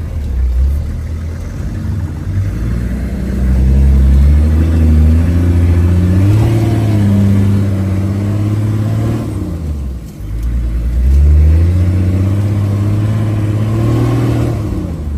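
4x4 off-road vehicle's engine heard from inside the cab, pulling along a rough dirt track: the engine note climbs under acceleration, drops away briefly about ten seconds in as the throttle eases or a gear changes, then climbs again.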